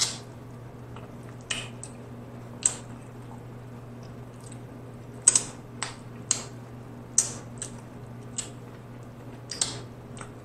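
Close-miked eating of sauce-covered baby back ribs: wet smacking and sucking clicks from the mouth and fingers as meat is bitten and pulled off the bone, about a dozen, irregular, the loudest a little past halfway.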